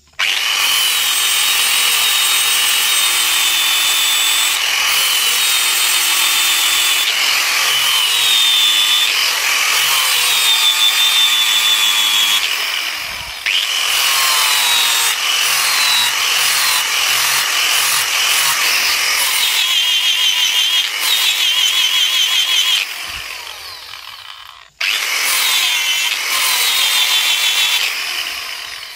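Electric angle grinder with an abrasive disc grinding a forged machete blade. The motor whine wavers as the blade is pressed to the disc. About halfway through and again near the end, the sound dies away and then starts up again.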